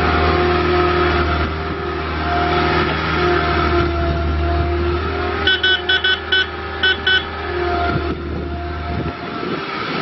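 John Deere 320D skid steer's diesel engine running with a steady whine as the machine drives and turns. Midway, a run of about six short beeps from its reverse alarm. The engine's low hum falls away near the end.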